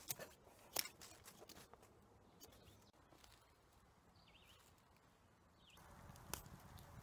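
Near silence, with a few faint clicks and taps from handling a wooden stick in the first second and a half. Two faint high bird chirps come midway, and a single soft tap near the end.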